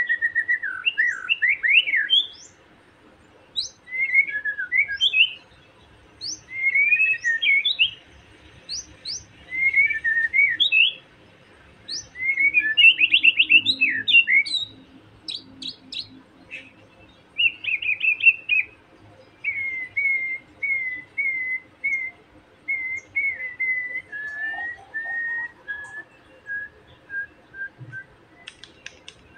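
Young wild white-rumped shama (murai batu) giving taunting calls of the kind that provoke a rival: short bursts of varied whistled song phrases with pauses between them, then, over the last third, a run of evenly repeated single notes, each a little lower than the one before.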